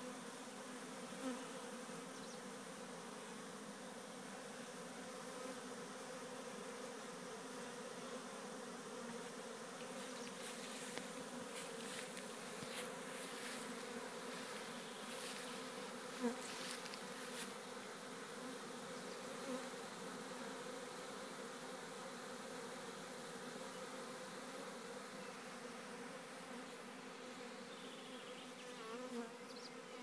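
A swarm of honeybees buzzing, a steady, low, many-winged hum, as the swarm moves into a new hive. A few faint clicks come in the middle.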